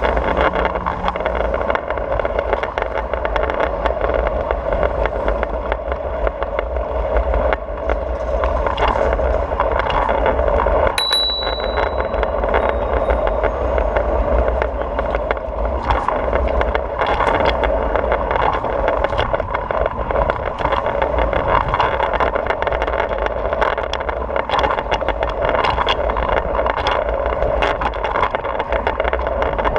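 Oxelo 7 kick scooter's wheels rolling over stone paving tiles, a steady rumble with frequent clacks at the tile joints, picked up by a camera mounted low on the scooter. A brief high ring about eleven seconds in.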